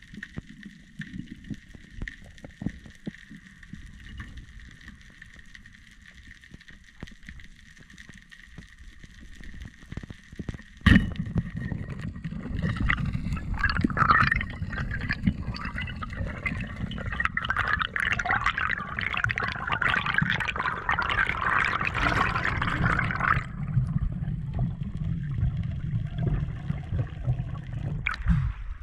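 Underwater sound on a spearfisher's camera: faint crackling and clicks, then a sharp knock about eleven seconds in, followed by loud bubbling and gurgling for about ten seconds. Near the end the camera breaks the surface and water sloshes.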